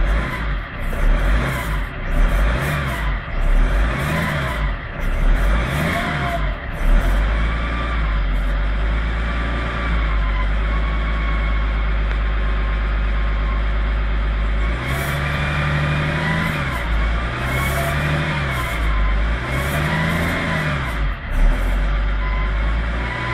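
BMW E61 530d's straight-six diesel revved in short blips, a few near the start and three more later on, with a turbo whine rising and falling with each rev. The owner takes the turbo's sound for a fault.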